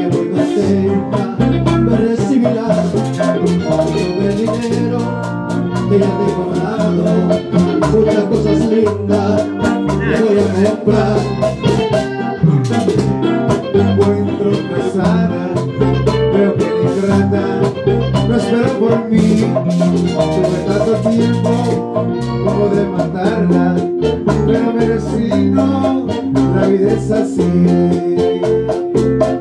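Live bachata band playing: guitar and bass over a steady percussion beat, with men singing into microphones.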